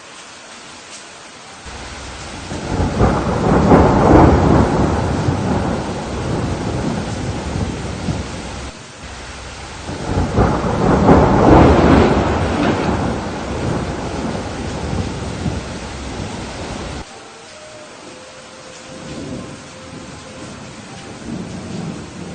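Steady rain with two long rolls of thunder, the first building about two seconds in and the second about ten seconds in. Each rumble ends abruptly, leaving only the hiss of the rain.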